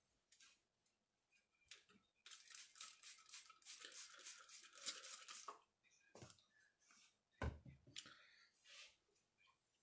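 Faint rustling and scraping, with small clicks, for about three seconds starting two seconds in, then one soft thump later on.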